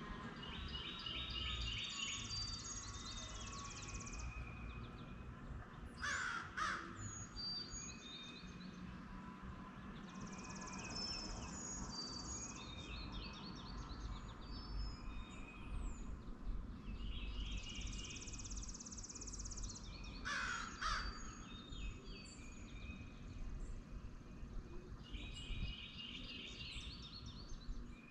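Birds singing in the early morning: one bird repeats the same high song phrase about every eight seconds, and a louder call cuts in twice, about a quarter and three quarters of the way through, over a steady low background noise.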